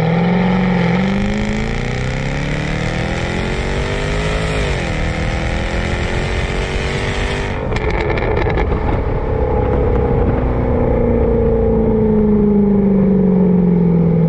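Jaguar F-Type R's supercharged V8 pulling hard under acceleration, its note rising, dipping briefly at a gear change about five seconds in, then rising again. The sound changes abruptly a little past halfway, and the engine note then falls slowly as the car eases off.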